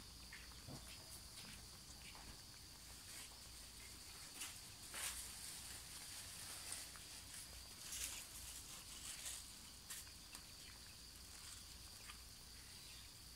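Faint bubbling and hissing of a large pot of chicken broth at a rolling boil over a fire, with small irregular pops, under a steady high thin drone.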